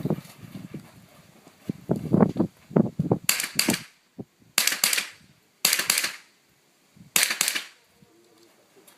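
Four rifle shots, spaced about one to one and a half seconds apart, each followed by a short echo.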